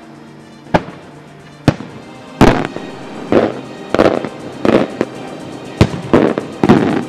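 Aerial firework shells bursting in the sky, about nine loud bangs, each followed by a rolling echo; the blasts come closer together in the second half.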